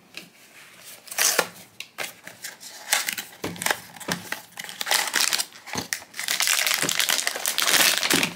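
Pop Mart blind box being opened by hand, then the silvery plastic bag holding the figure handled and torn into: scattered rustles and crinkles at first, turning to steady crinkling over the last couple of seconds.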